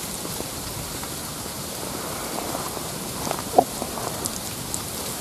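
Light rain pattering steadily, with scattered small ticks and one sharper tick about three and a half seconds in.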